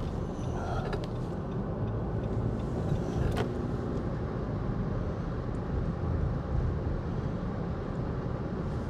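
A car driving slowly: a steady rumble of engine and tyre noise, with a few faint clicks.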